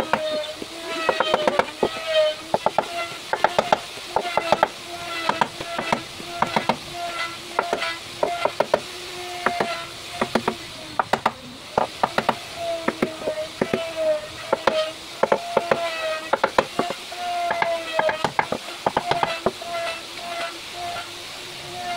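A claw hammer tapping the solid-wood tabletop in quick runs of light strikes. A steady hum runs underneath.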